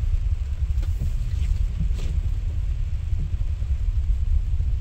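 Cabin noise of an electric Tesla Model X in heavy rain: a steady low rumble of rain and road, with a few faint ticks about one and two seconds in.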